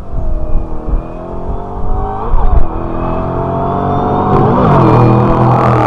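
Car engine accelerating hard, its pitch climbing steadily, with two quick wobbles in pitch, about two seconds in and near the end, and a faint high whine rising with it.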